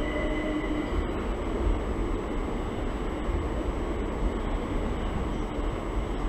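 An electric multiple-unit passenger train running through the station without stopping: a steady rumble and rush of wheels and carriages, with a high whine that stops about a second in.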